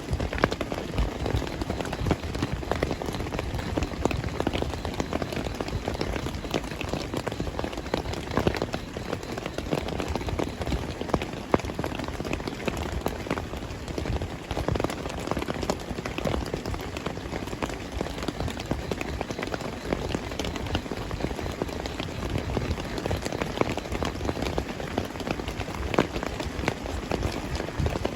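Heavy rain falling steadily: a dense, even hiss with many individual drops striking a surface close by.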